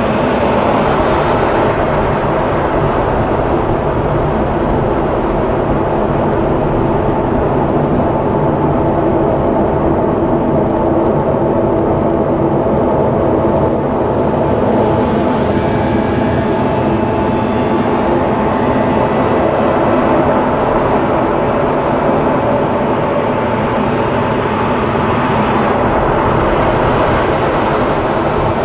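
Steady, loud noise inside an F-16 fighter's cockpit during aerobatic flight: jet engine and rushing air with a constant hum, and a high whine swelling briefly near the end.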